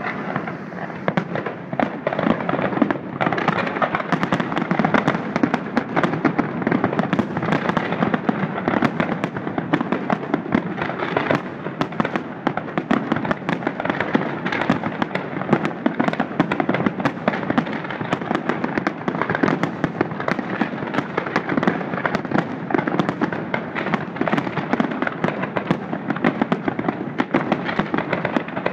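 Fireworks display going off in a continuous barrage: rapid, overlapping bangs and crackling with no pause.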